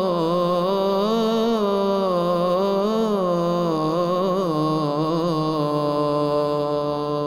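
A man singing an Islamic nasheed, drawing out one long melismatic phrase. His pitch winds up and down through the first four seconds or so, then settles into a long steady held note.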